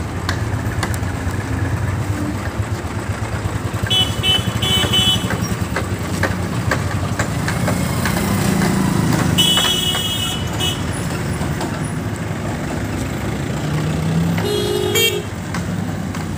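JCB backhoe loader's diesel engine running steadily amid street traffic, with short vehicle horn toots: two quick beeps about four seconds in, a longer one around nine and a half seconds, and another near the end.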